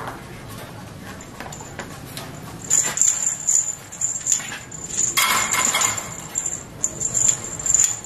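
Clicks and knocks of a crow hopping and shuffling about its wire cage. From about three seconds in, a high jingling ring comes and goes, loudest in a burst around the middle.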